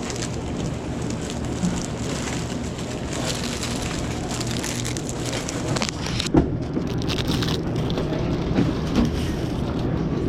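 Crackly rustling and crinkling of plastic-wrapped snack cakes and their cardboard boxes being handled, with a sharper knock about six seconds in, over a steady low hum.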